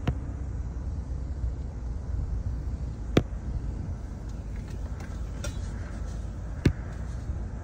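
Steady low rumble with two sharp knocks, the first about three seconds in and the second about three and a half seconds later.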